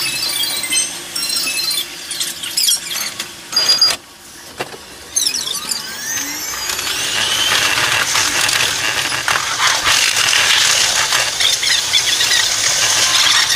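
Electric train running sound played back sped up, so the wheel and motor noise comes out as high-pitched squealing with quick gliding whines. It dips briefly about four seconds in, then thickens into a dense, loud high hiss from about seven seconds in as the train moves off.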